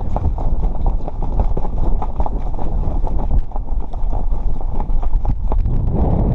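Heavy wind buffeting the microphone in a steady low rumble, with quick, irregular footstep-like crunches throughout.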